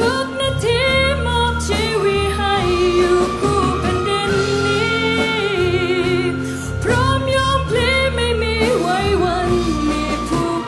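A woman singing a Thai ballad live with vibrato over band accompaniment, sustained low notes under the melody.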